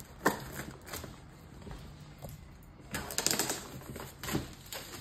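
Large cardboard firework assortment box being handled on a table: a sharp knock about a quarter second in, light rustling, and a quick run of clicks and taps around three seconds in.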